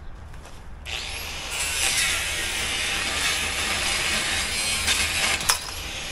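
Power tool cutting, starting abruptly about a second in and running steadily, with a sharp snap about five and a half seconds in.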